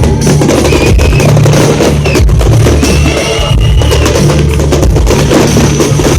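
Loud live concert music with heavy bass and a pounding drum kit.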